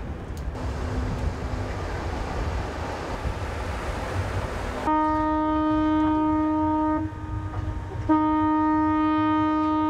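Ship's horn of a passenger vessel: one steady, loud blast begins about five seconds in, drops away briefly around seven seconds and sounds again about a second later. Before the horn there is a steady rushing noise.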